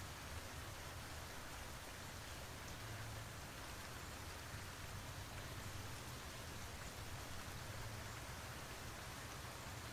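Steady rain falling, an even hiss of drops on surfaces, with a low rumble underneath.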